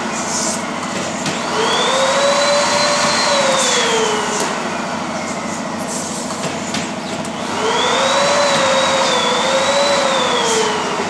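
Balloon printing machine running: a steady air hiss, with a motor whine that rises in pitch, holds, then falls away, twice.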